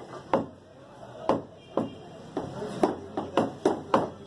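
Butcher's cleaver chopping mutton on a wooden chopping block: about nine sharp strikes, spaced out at first and coming faster in the second half.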